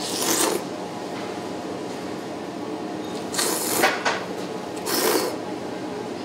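Three short, hissing slurps of cold buckwheat noodles (mo-mil soba), each about half a second long: one at the start, one about three and a half seconds in and one about five seconds in.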